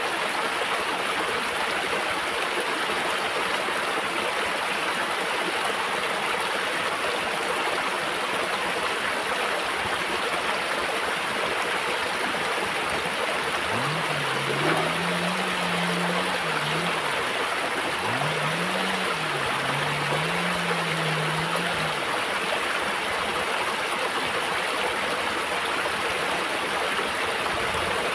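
Shallow stream running over rocks: a steady rush of water. About halfway through, a low hum rises, holds and falls away twice.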